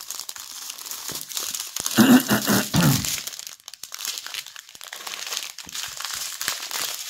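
Small plastic bags of resin diamond-painting drills crinkling and rustling as they are handled and laid down, with a louder bump and clatter about two seconds in.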